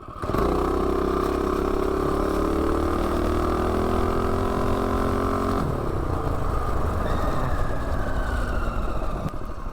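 Predator 212 single-cylinder engine on a minibike at full throttle from a standing launch, its pitch climbing steadily as the bike accelerates. About six seconds in the throttle is let off and the engine note drops away as the bike coasts.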